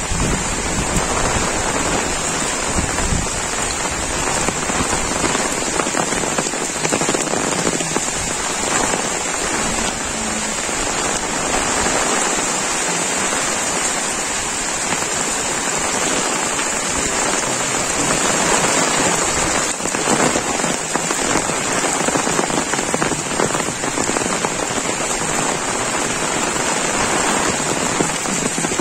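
Heavy monsoon rain falling steadily on an umbrella overhead and on the wet road and foliage around.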